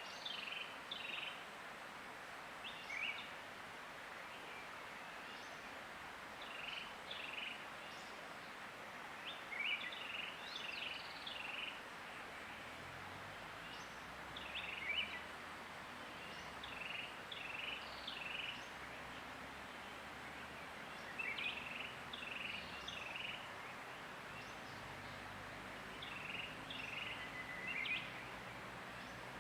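A songbird singing short, chirpy phrases, repeated every three to four seconds, over a steady background hiss.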